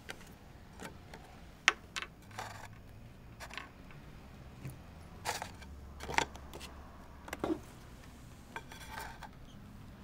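Paper being folded and creased into tent cards and set down on a tabletop: short rustles and swishes of paper mixed with several sharp taps and clicks.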